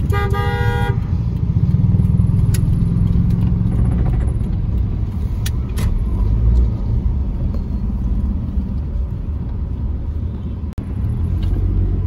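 Low, steady engine and road rumble inside a car's cabin while driving slowly. A vehicle horn sounds at the start for about a second, and a few sharp clicks come later.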